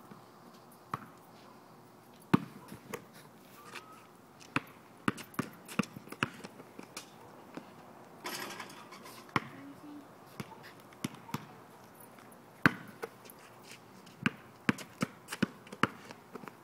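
A basketball bouncing on pavement, a string of sharp, irregularly spaced bounces, with a brief rustling noise about eight seconds in.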